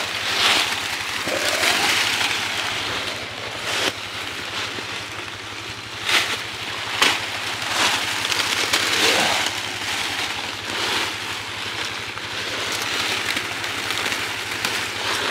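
Dry fallen leaves crunching and rustling in irregular surges, with sharp cracks of twigs, as a shot buck is moved through the leaf litter on foot. A steady low hum runs underneath.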